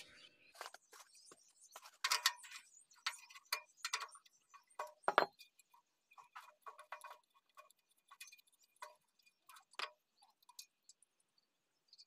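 Irregular metallic clicks and clinks of tools and parts being handled while a small diesel engine's cover is opened to reach the rocker arms and tappets, with the engine stopped.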